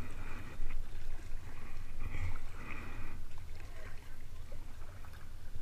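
Kayak paddle blades dipping and splashing in the water with each stroke, over a steady low rumble.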